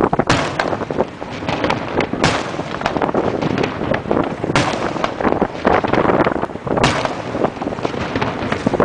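Daytime noise fireworks of a 'diana' salvo: a rapid, unbroken rattle of bangs from aerial salute shells, with four much louder reports about two seconds apart.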